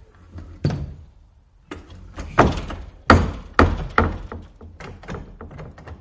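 Spring-hinged wooden screen door banging shut against its frame several times, with wooden clatter and rattle after each hit. The loudest slams fall near the middle, trailing off into smaller rattling taps near the end.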